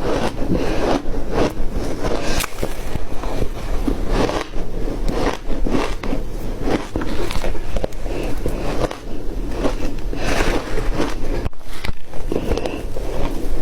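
Flaky ice being bitten and chewed: a dense, irregular run of crisp crunches with no pauses.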